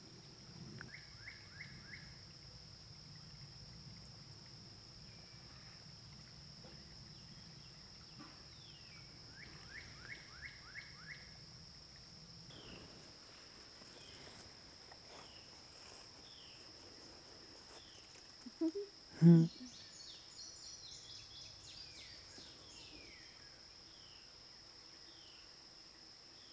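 Backyard woodland ambience: a steady high-pitched insect drone under songbird calls, with quick runs of chirps and a string of short downward-slurred notes. About 19 s in there is one loud, brief sound.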